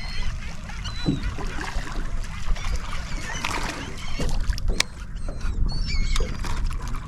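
Seabirds calling, a few short high calls, over a steady low rumble, with a few sharp clicks.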